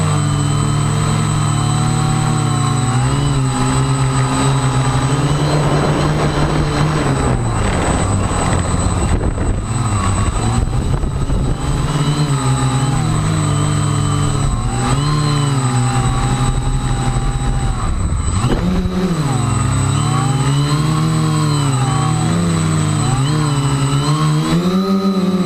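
Electric motors and propellers of a small radio-controlled aircraft buzzing in flight, with a steady high whine over them. Their pitch keeps rising and falling as the throttle changes to hold it in gusty high wind, with wind rushing over the microphone for a stretch in the middle.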